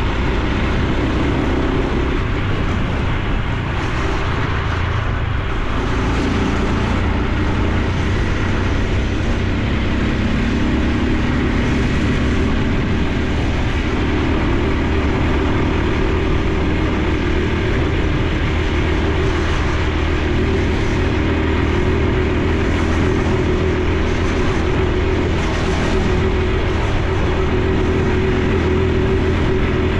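Honda Super Cub C125's single-cylinder four-stroke engine and exhaust running steadily while riding, its note shifting in pitch a few times as the speed changes.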